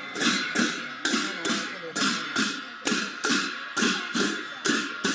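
Rhythmic percussion: sharp strikes in steady pairs about once a second, each dying away quickly over a faint ringing metallic tone.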